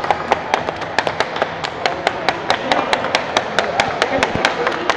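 Several people clapping by hand: sharp, separate claps at about seven a second, over the murmur of a crowd in a hall.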